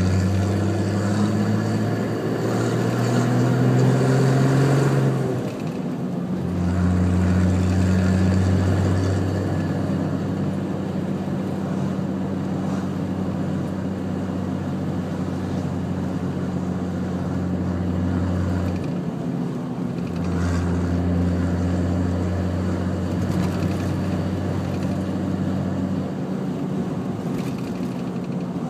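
Nissan Patrol GQ's turbocharged RD28 2.8-litre straight-six diesel running through a 3-inch exhaust with no mufflers, heard from inside the cab while driving. It pulls with rising pitch for the first five seconds, drops back, then drones steadily at cruise, easing off briefly around twenty seconds in and again near the end.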